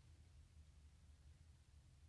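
Near silence: room tone with a steady faint low hum.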